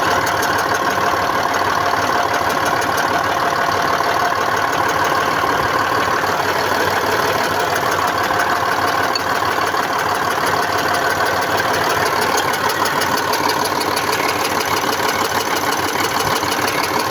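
YaMZ-236 V6 diesel engine running with a rapid, steady metallic knock, a ringing, steely sound. The owner traces it to the fuel injection side, since it goes away when an injector's fuel line is loosened, and suspects the injectors.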